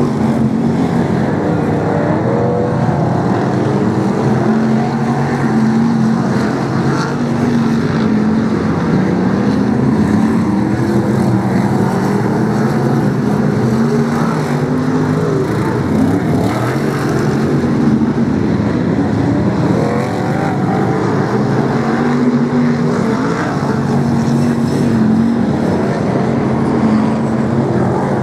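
Several BriSCA F1 stock cars' V8 engines racing round the oval, loud and continuous, their pitch rising and falling as the cars accelerate and back off through the bends.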